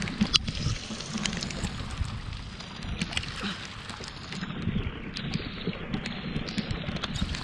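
Heavy rain falling on a small wooden outrigger fishing boat and the sea around it, with scattered sharp drop hits, water washing along the hull and wind on the microphone.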